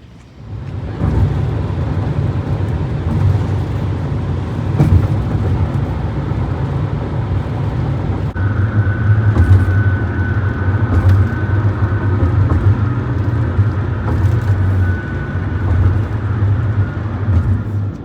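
A motor vehicle running: a loud, steady low rumble that starts suddenly about a second in. A faint, thin high whine joins about halfway through.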